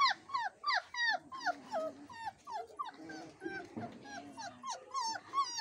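Mixed-breed puppies whining and whimpering, a quick run of short high cries that each fall in pitch, about three or four a second.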